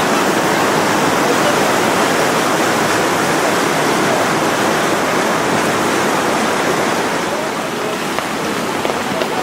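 The Ganges in flood, a steady rush of fast, heavy water.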